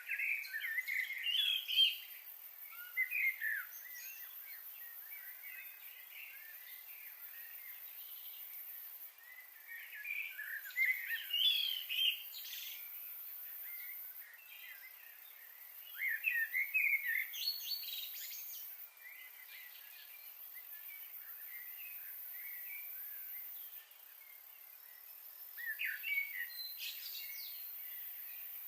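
Small birds chirping in repeated bursts of quick, bright calls every several seconds, over a steady faint background hiss.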